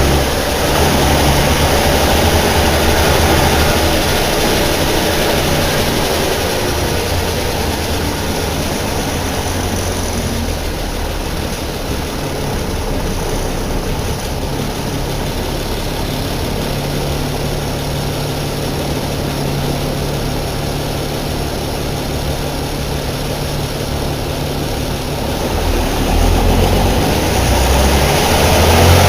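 Deutz BF6L 913 C air-cooled six-cylinder turbo diesel of a city bus running steadily. It runs quieter through the middle and picks up again near the end.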